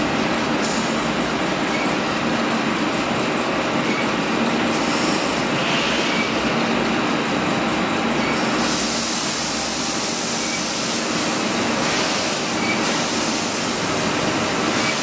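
Double-shaft shredder and its belt conveyor running empty: a steady mechanical rumble and clatter with a low, even hum, before any drum drops into the cutters.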